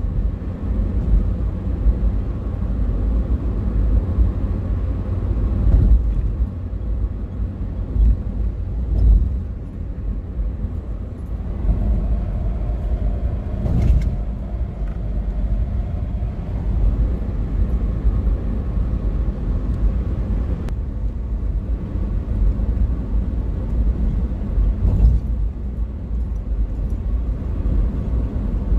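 Car cabin noise at highway speed: a steady low rumble of engine and tyres on the road, heard from inside the car. A brief click about halfway through.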